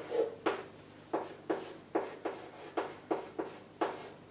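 Chalk writing on a chalkboard: a run of about ten short, sharp taps and scrapes as Chinese characters are written, two or three strokes a second.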